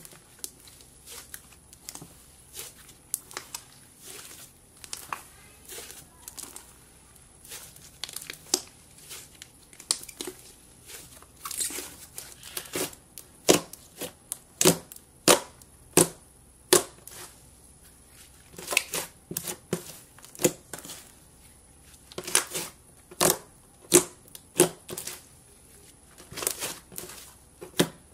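Hands squishing and poking a thick purple slime, making irregular sharp pops and crackles, about one or two a second, louder in the second half.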